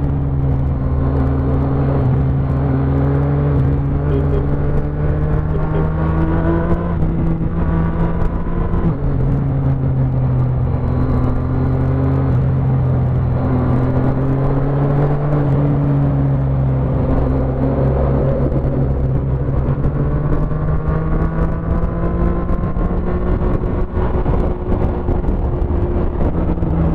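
Motorcycle engine running at highway speed under wind and road noise. Its note drops sharply about nine seconds in, then climbs gently and holds.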